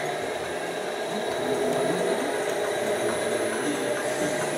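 Radio-controlled model truck's electronic engine sound running steadily, mixed with the even background noise of a large hall.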